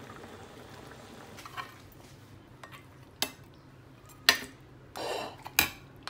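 Metal utensil clinking and scraping against a wok and plate while braised soft-shell turtles are dished out. There are a few sharp clinks and one short scrape in the second half.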